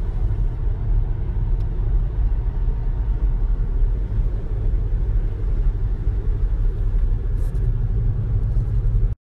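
Steady low rumble of a car being driven, heard from inside the cabin, that cuts off suddenly near the end.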